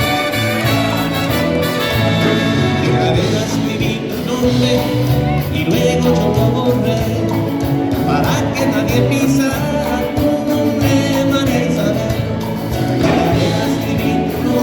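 Live band playing a Latin song with brass.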